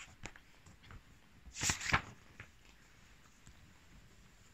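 A paper page swishing once, briefly, about a second and a half in, like a page of a large picture book being turned, with a few faint taps and clicks of handling around it.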